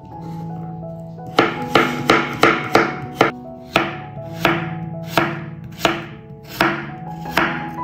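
Chef's knife slicing radishes on a wooden cutting board, each cut ending in a sharp knock of the blade on the board. The cuts start about a second and a half in and come quickly, about two to three a second.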